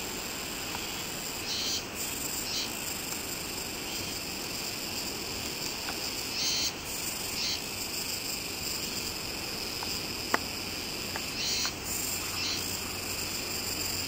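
Insects calling steadily, with a pair of brighter high calls about a second apart that repeats roughly every five seconds, over a steady rush of noise. A single sharp click about ten seconds in.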